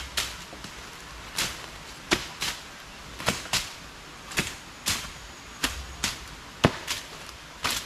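Machete strokes chopping through undergrowth: about a dozen sharp cuts at an uneven pace of one to two a second, some coming in quick pairs.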